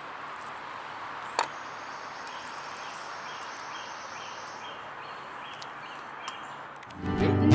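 Steady outdoor background with faint, evenly spaced insect chirps, about two a second, and one sharp click about a second and a half in. Music starts just before the end.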